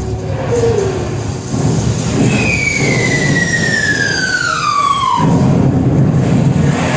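Sound effect in a mime's backing track played over the hall's PA: a long falling whistle, like a bomb dropping, gliding down in pitch for about three seconds over a low rumble.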